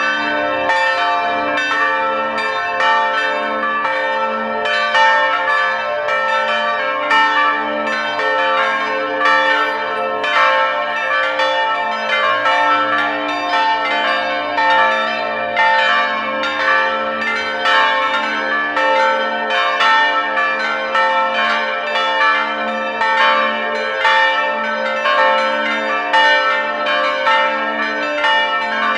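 A peal of new church bells swinging in a steel bell frame, their strokes overlapping a few times a second in a steady, clangorous ringing.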